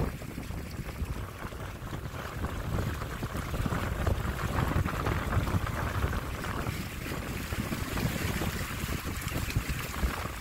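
Wind buffeting the microphone over the hiss of water rushing along the hulls of a Windrider 17 trimaran under sail; the water hiss grows brighter about four seconds in.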